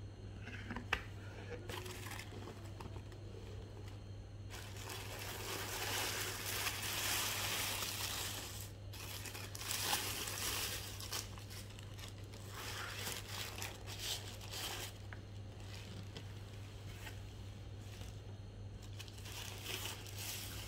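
Tissue paper crinkling and rustling as hands fold it back from a pair of running shoes in a cardboard shoe box. There is a sharp tap about a second in, and the crinkling is loudest in the middle of the stretch.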